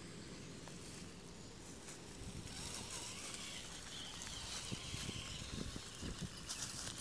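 Redcat Rockslide RS electric RC crawler driving over dry fallen leaves, its tyres rustling and crunching through them over a faint motor whine, with a few sharp knocks in the second half as it clambers over the ground.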